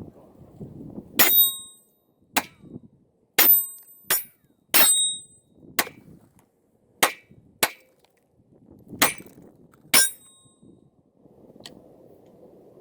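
A string of about ten rifle shots fired at an unhurried pace, roughly one a second, several followed by a brief metallic ring as rounds hit a steel target.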